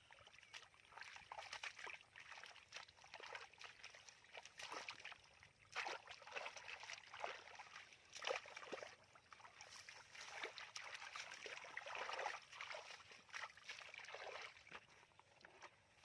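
Irregular splashing and sloshing of hands working through shallow muddy water, in short uneven bursts, as fish are caught by hand in the mud.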